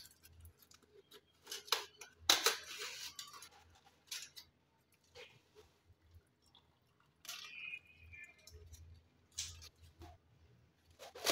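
Aluminium foil around a steam-roasted leg of mutton crinkling and rustling in short bursts as it is handled and lifted out of a pressure cooker, with a few light clicks; the loudest burst comes about two seconds in.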